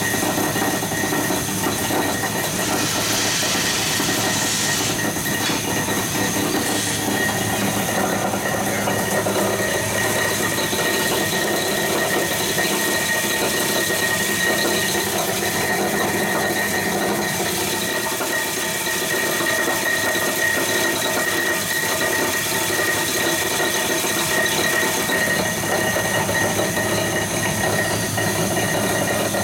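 Blackfriars plastic granulator running, its rotor chopping plastic ticket strip into granules: a dense, steady mechanical rattle with a steady high whine.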